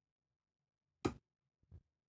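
Two short clicks of a pick working the pins of a Deguard 4-pin dimple lock, the first about a second in and louder, the second weaker near the end.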